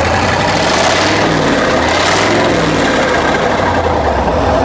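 Hino F17D V8 diesel engine revved once: it climbs from idle about half a second in, holds for a couple of seconds and falls back to idle.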